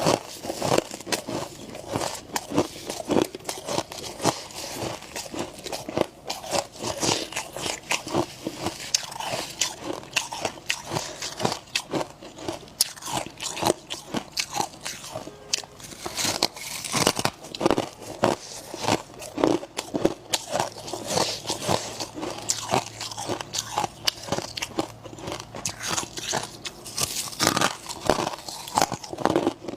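Powdery freezer frost and ice being bitten and chewed: a dense run of sharp, irregular crunches, several a second.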